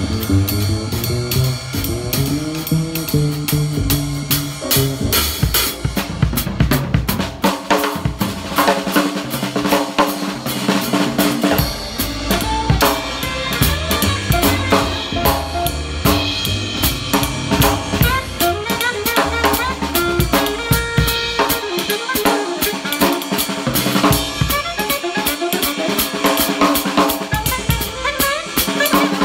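Jazz big band playing, with the drum kit up close: sticks on snare and cymbals and a kick drum driving steadily. An upright bass and other instruments are underneath.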